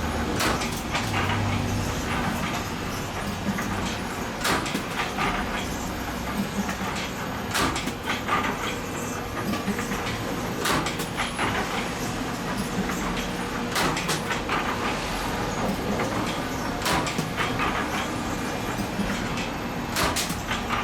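Spring-making machinery running: a steady mechanical hum with irregular sharp metallic clicks and clatter.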